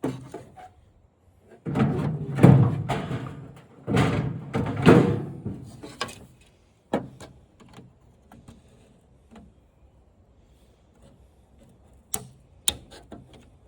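Plastic parts of a flat-screen TV scraping and creaking as they are worked loose by hand, in two longer bursts, followed by a few sharp clicks and knocks near the end.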